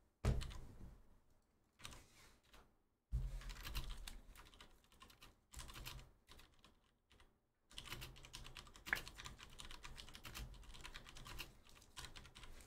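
Typing on a computer keyboard: runs of rapid key clicks, broken by pauses of about a second.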